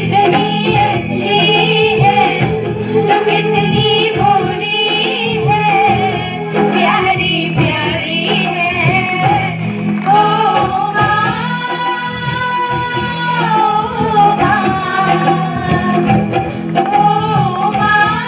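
Hindi song with a female singer's wordless melodic vocal over instrumental accompaniment, with long held notes in the middle.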